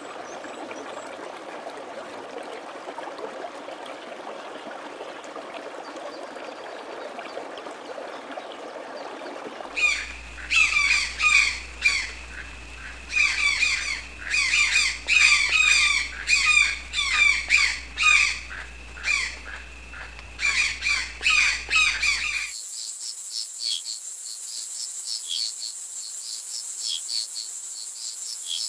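Running water hissing steadily for about the first ten seconds. Then a parrot squawks harshly over and over for about thirteen seconds, the loudest part, with a faint low hum beneath. It gives way to insects trilling in a steady high pitch.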